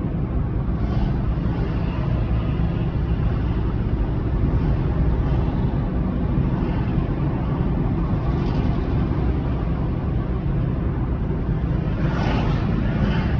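A car driving on city streets: steady engine rumble and road noise, with a short rise in hiss near the end.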